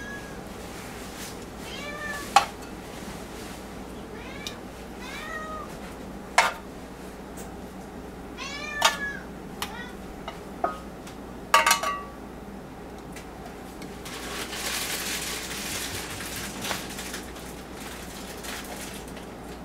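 A domestic cat meowing repeatedly, several short rising-and-falling calls through the first half, between sharp metallic clicks of kitchen tongs against a pan and bowls. Later there is a soft hiss for about two seconds.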